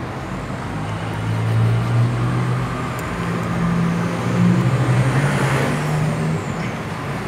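Motor vehicle engine running close by: a low droning hum that swells and fades several times over street noise.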